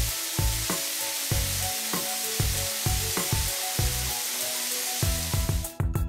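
Steady hiss of water spraying from car-wash spray guns, over background music with a steady beat; the spray cuts off suddenly about five and a half seconds in.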